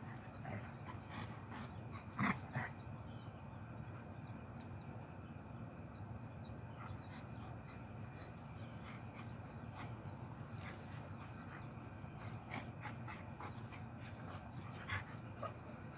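Two dogs play-wrestling, making short, scattered vocal sounds. The loudest is a pair about two seconds in, with a few more near the end.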